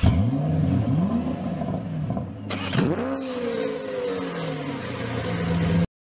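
A car engine revving, its pitch sweeping up and down several times, with a sharper swoop about three seconds in. It cuts off suddenly near the end.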